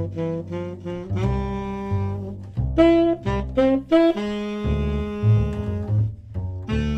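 Saxophone and plucked upright double bass playing jazz together: the saxophone plays a melody line, mostly in long held notes from about a second in, over the bass line.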